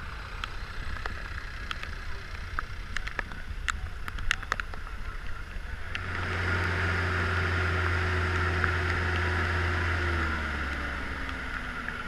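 4x4 off-road vehicle engine running steadily over a rushing hiss, with scattered clicks in the first half. It grows louder about halfway through and its pitch sinks slightly near the end.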